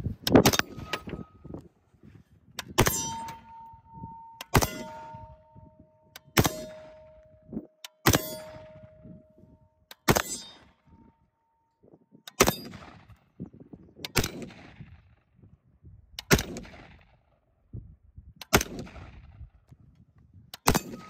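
Bushmaster XM15-E2S AR-15 firing 5.56 rounds one at a time, about one shot every two seconds, eleven shots in all. After several of the shots, in the first half, a steel target rings with a clear held metallic tone for a couple of seconds: those rounds are hits on the steel plate.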